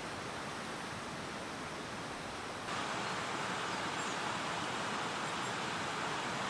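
Steady rushing of mountain water, an even hiss with no rhythm, that jumps abruptly louder and brighter about two and a half seconds in.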